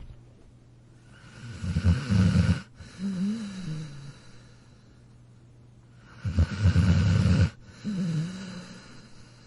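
A dog snoring: two snores about five seconds apart, each a rattling inhale followed by a shorter, wavering whistle-like exhale.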